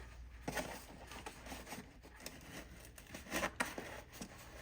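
Rustling and light clicks of hands and tools being handled at the car battery, with a brief cluster of sharper clicks about three and a half seconds in.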